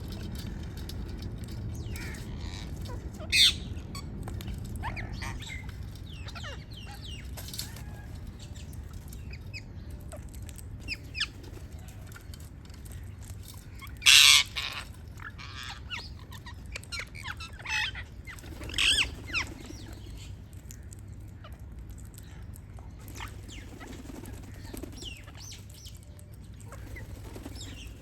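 Parrots chirping and squawking in short, scattered calls, with one loud harsh squawk about halfway through.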